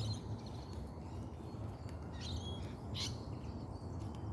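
Wild birds calling in a tree: a few short, high, harsh chirps spread over the few seconds, over a steady low hum.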